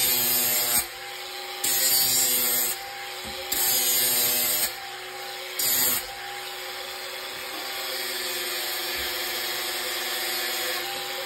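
Cordless angle grinder running with a steady whine while its disc grinds into a white plastic boiler flue pipe: four loud, hissing passes of about a second each in the first six seconds, then a steadier, continuous grind.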